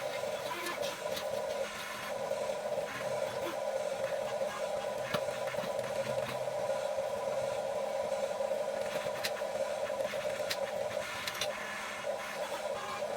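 Small electric motors and plastic gearboxes of a Huina 1550 RC excavator running with a steady whine, broken by a few sharp clicks.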